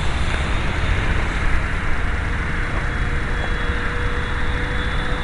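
Wind rumbling and hissing over the camera microphone, with the faint steady whine of a foamboard RC plane's Grayson Hobby 1500 Kv electric motor and 8x3 propeller flying overhead.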